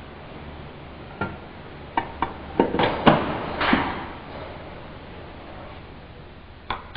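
Metal transmission parts clinking and knocking as they are handled and fitted during gearbox reassembly: about six short, sharp knocks in the first half, over a low steady hum.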